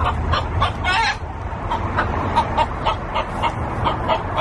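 Several chickens clucking in quick, short repeated notes, with one louder squawk about a second in.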